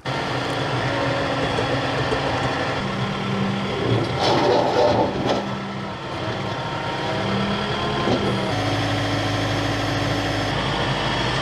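Engine of a heavy machine running steadily, changing speed twice, with a short burst of louder noise about four seconds in.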